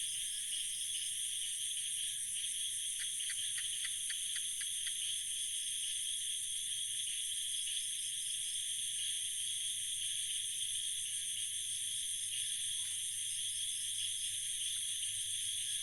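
Night-time insect chorus: a steady, high-pitched, continuous trilling. About three seconds in, a short run of about eight quick clicks sounds over it.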